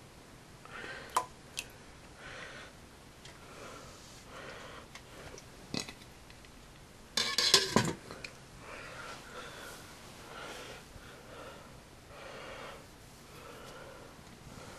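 Soft breathing close to the microphone, about one breath every two seconds, with a few clicks and knocks from a metal cooking pot. The loudest sound is a short metallic clatter about seven seconds in.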